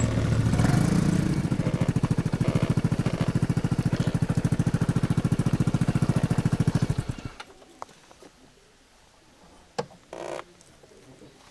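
Vespa GTS300 scooter's single-cylinder four-stroke engine idling with an even beat, then switched off about seven seconds in. Afterwards there are a faint click and a brief rustle.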